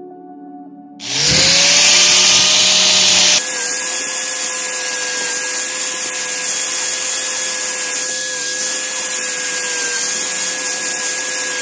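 Angle grinder with a polishing wheel starting up about a second in, its whine rising as it winds up to speed, then running at a steady high whine.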